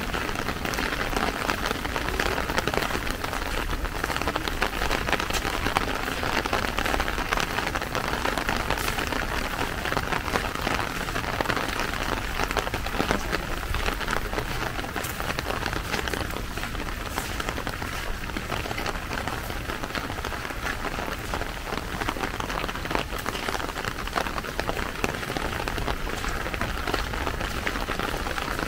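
Steady rain falling: an even hiss made of many small drop impacts, with no letup.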